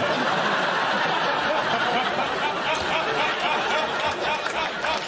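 Studio audience laughing at a punchline: a dense, steady wash of crowd laughter with individual laughs standing out here and there.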